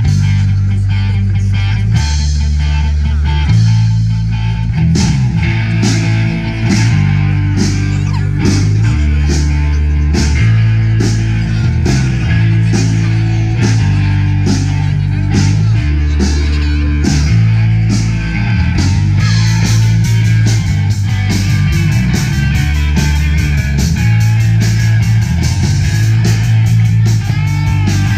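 Rock band playing live: electric guitar and bass over drums, the low notes changing every second or two, with the cymbals getting busier about two-thirds of the way through.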